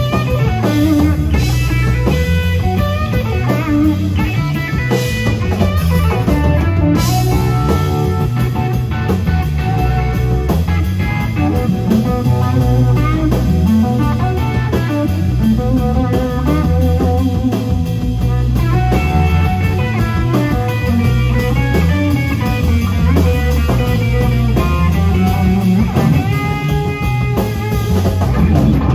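Live electric guitar, electric bass and drum kit trio playing an instrumental rock piece, with a heavy, moving bass line under the guitar.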